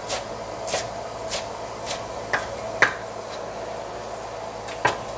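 Chef's knife chopping cilantro and green onions on a wooden cutting board, a stroke a bit less than twice a second, stopping about three and a half seconds in. A single knock comes near the end.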